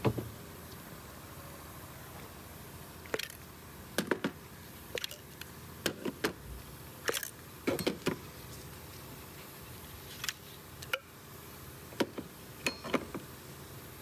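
Scattered short plastic clicks and knocks, singly and in small clusters, as the coil-on-plug ignition coils are pulled out of the spark plug wells of a Volkswagen Jetta GLI engine.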